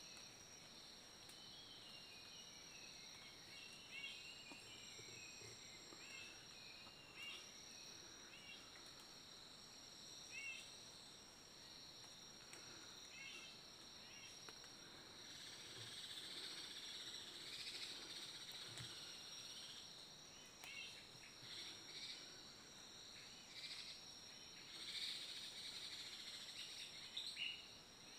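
Faint, steady high-pitched drone of insects, with short bird chirps scattered through it and a soft rushing sound for a few seconds midway.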